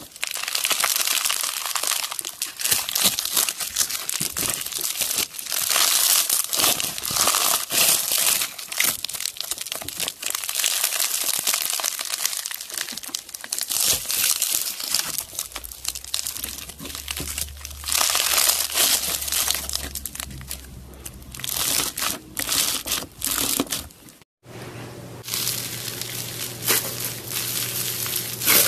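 Crunchy slime full of small beads being squeezed and pressed between fingers: dense crackling and popping as the beads are crushed. About 24 seconds in the sound breaks off briefly, then the crackling goes on as a fluffier slime is squeezed.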